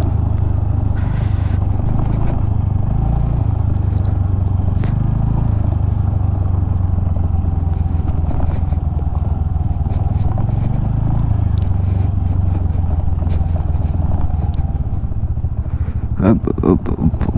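Scooter ridden slowly over a rough dirt-and-gravel track: a steady low engine and road rumble with scattered clicks and scrapes from loose stones under the tyres. A voice starts near the end.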